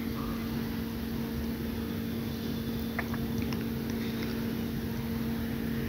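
Steady machine hum over a low rumble, with a few faint clicks about halfway through.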